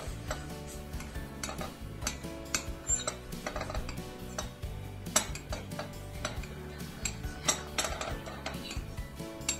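Background music with sustained low notes, dotted with sharp light clicks and taps.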